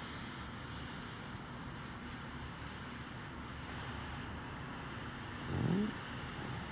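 Butane torch lighter burning with a steady jet-flame hiss while it heats a solder-seal heat-shrink connector.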